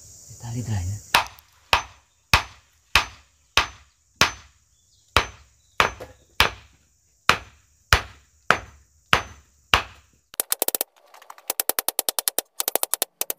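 A hammer striking about fifteen times at an even pace, well under a second between blows, each a sharp knock with a faint metallic ring, as in nailing wooden floor boards. Near the end comes a fast run of ticking clicks.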